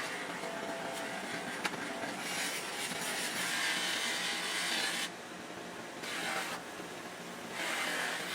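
Abrasive grinding or sanding of a brass knife blade on a running power tool: a steady rasping hiss over the motor's hum. The hiss drops out twice, about a second each time, near the end while the motor keeps running.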